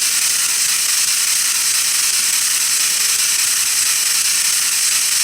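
Steady loud hiss of electronic static, strongest in the high range and unbroken throughout.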